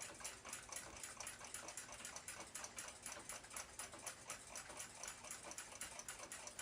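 Clock ticking steadily and rapidly, about six light ticks a second.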